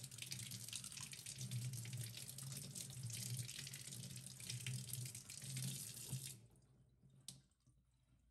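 Kitchen faucet running into a stainless steel sink while an apple is rinsed under the stream. The water shuts off about six seconds in, and a single faint click follows.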